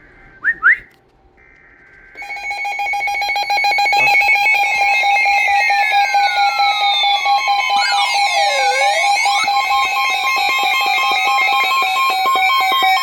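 Emergency alert attention tone sounding for a dust storm warning: loud, steady alarm tones with a rapid pulsing flutter, starting about two seconds in. Just before it come two short rising whistles.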